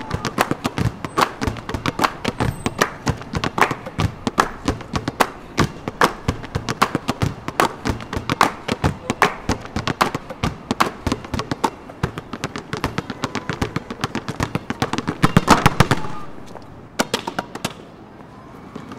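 Several basketballs dribbled in rhythm on a hard outdoor court: a steady pattern of sharp bounces that builds to a dense flurry about fifteen seconds in, then stops, leaving a couple of last bounces.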